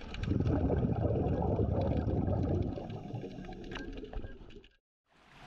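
Water noise picked up underwater, bubbling and rushing with scattered clicks, dying away to silence shortly before the end.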